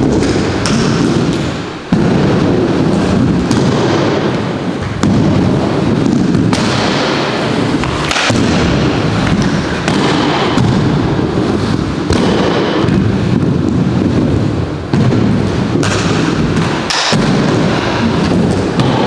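Inline skate wheels rolling back and forth on a wooden mini ramp: a loud, steady rumble that dips briefly every second or two as the skater turns at the top of each wall, with a few sharp knocks and a grind of the skates along the ramp's coping.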